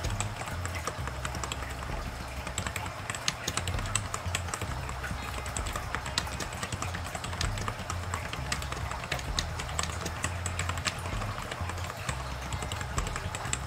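Continuous typing on a Micronics full-size membrane keyboard: a fast, uneven patter of key presses.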